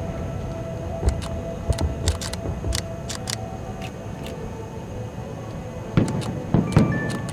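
Fireworks going off: scattered sharp cracks and pops over a low rumble, with a louder cluster of bangs about six seconds in.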